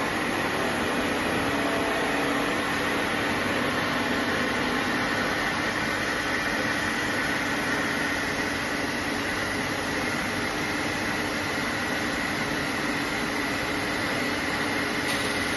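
Steady machine running noise: an even hum and hiss with faint steady whining tones, from the CNC cutting machine's equipment running.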